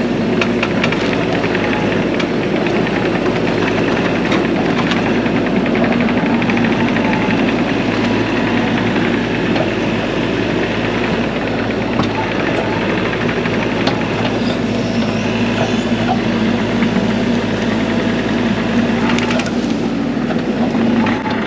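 Bobcat E42 mini excavator's diesel engine running steadily under load while it grades, with scattered knocks and cracks of the bucket working dirt and stone.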